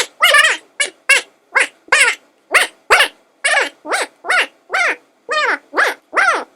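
Gibberish 'blah blah' voice effect: a string of short, high-pitched nonsense syllables, about two a second, each sliding down in pitch, with no intelligible words.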